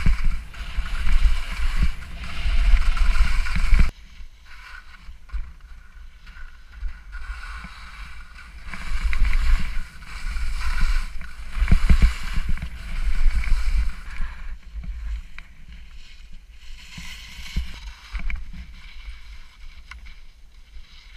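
Skis scraping and hissing over snow on a steep descent, swelling in long surges and easing between them, over a low rumble of wind and vibration on the camera microphone.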